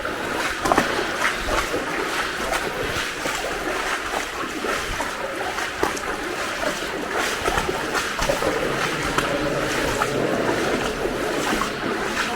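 Wellington boots wading through shin-deep water, with steady sloshing and splashing at each stride.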